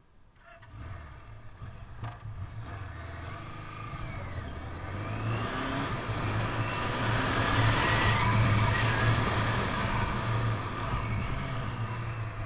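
1978 Suzuki GS750's air-cooled inline-four engine running as the motorcycle is ridden, with rising pitch as it pulls away and wind rushing over the microphone. The sound fades in just after the start, builds to its loudest about eight seconds in, then eases off toward the end.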